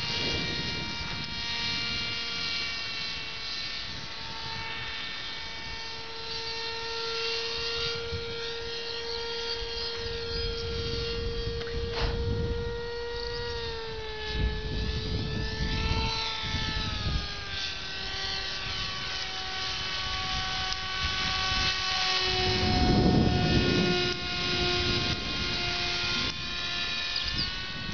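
Electric motor and pusher propeller of a radio-controlled foam trainer plane in flight, a steady whine that falls in pitch in steps through the middle and settles lower near the end. Low rumbles of wind on the microphone come and go, loudest a little past halfway.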